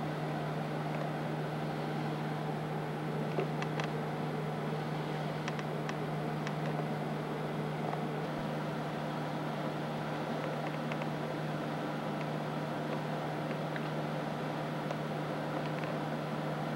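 Steady low mechanical hum with a constant noise haze, and a few faint, brief high ticks scattered through it.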